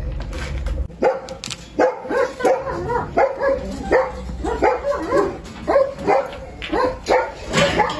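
A dog barking over and over, starting about a second in, at roughly three barks every two seconds.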